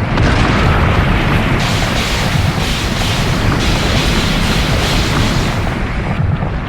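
Loud, continuous explosion-like rumble with hiss on top, held without separate blasts: a sustained blast or energy sound effect.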